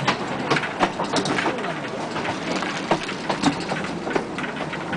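Carriage of the Blue Mountains Scenic Railway running down its steep incline, rattling with rapid, irregular clicks and clanks from the wheels and frame on the track.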